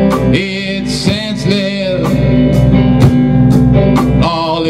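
Rock band playing live: electric guitars ringing over a drum kit, with the drums keeping a steady beat of about two hits a second.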